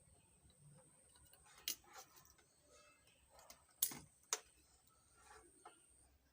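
Scattered sharp clicks and snaps of small hand tools working on an amplifier circuit board while burnt diodes are removed, the two loudest close together about four seconds in.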